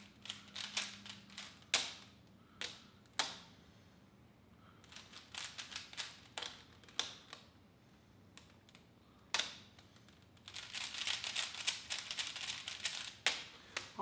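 Stickerless plastic Rubik's cube being twisted by hand: bursts of clicking as its layers turn, broken by short pauses, with a few sharper knocks and a fast, dense run of turns near the end.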